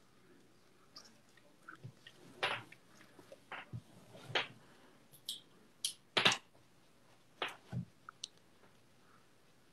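Chewing close to the microphone: a string of irregular sharp clicks and smacks, the loudest about six seconds in.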